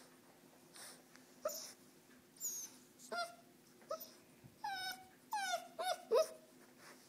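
Great Dane puppy whimpering and whining: a string of short, high cries with sliding pitch, coming closer together and louder over the last few seconds.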